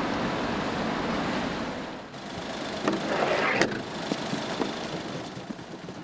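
Small Honda kei delivery truck running as it drives in, a steady engine and road noise. After about two seconds it drops away to a quieter stretch with a short rattle and a few sharp clicks as a stack of boxes on a wheeled dolly is pushed.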